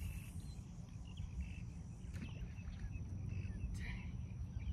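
Wind rumbling on the microphone, with faint, scattered short bird chirps.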